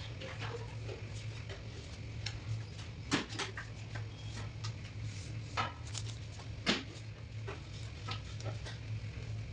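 Light knocks, clicks and rustles of tools and a paper piping cone handled on a stone countertop, the sharpest three about three, five and a half, and nearly seven seconds in, over a steady low electrical hum.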